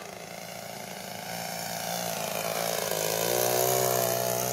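Engine and propeller of a radio-controlled de Havilland DH.60 Moth floatplane model in flight. The steady buzz grows louder as the model comes closer, and its pitch sags briefly about three seconds in.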